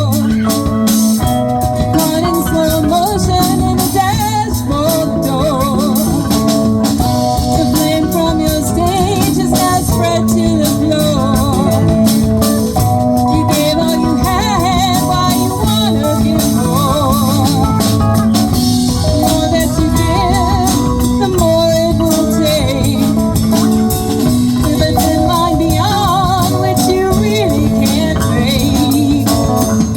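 Live band playing a classic rock song, with singing over the instruments.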